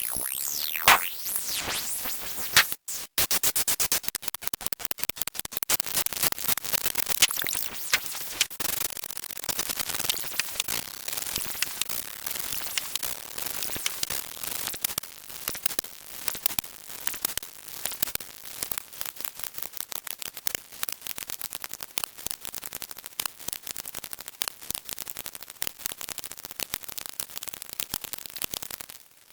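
A rapid, dense string of short electronic sound effects, many per second, with a brief cut-out just before three seconds in. It opens with sweeping synthesized tones.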